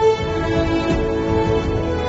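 Background music: sustained melodic tones over a steady low beat.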